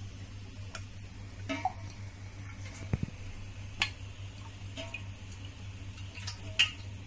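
Metal spoon clinking against a metal pot, several separate taps, some with a brief ring, as spoonfuls of cooking oil are added. A steady low hum runs underneath.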